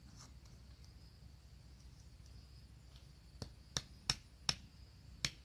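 A run of five sharp clicks in the last two seconds, from hands working a ground snare trap at its wooden stake. Under them runs a steady high buzz of insects, typical of crickets.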